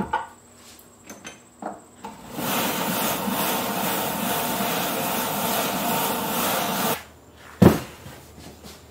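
Lortone rotary tumbler running with its rubber barrel turning, a steady churning noise from about two seconds in that stops abruptly near seven seconds, after a few light clicks as the barrel goes onto the rollers. Near the end a single loud thud as the barrel is set down on a wooden table.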